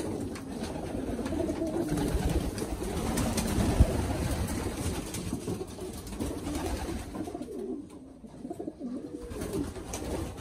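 Domestic pigeons cooing in a loft, with a single loud thump about four seconds in.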